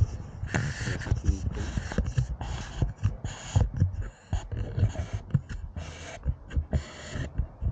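Border collie panting close by, short breaths at about two a second, with low thuds underneath.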